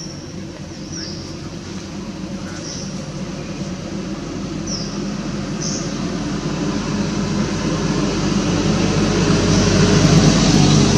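A motor vehicle's engine running with a steady low hum that grows steadily louder, as if approaching. A few short high chirps sound over it in the first half.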